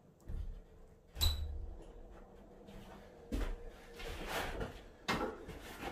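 A wooden coop door with wire screening being opened and handled: a sharp latch click about a second in, then several dull knocks.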